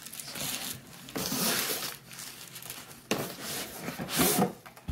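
Packaging being handled: bubble wrap crinkling and a cardboard shipping box rustling as the package is opened, in several separate bursts.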